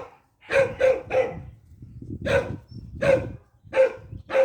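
Dog barking: a quick run of three barks, then four single barks spaced out.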